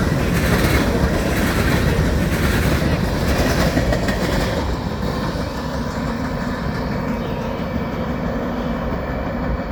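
Freight train cars rolling past at speed, the wheels clicking over the rail joints. The sound loses its hiss and grows duller after about four and a half seconds as the train draws away.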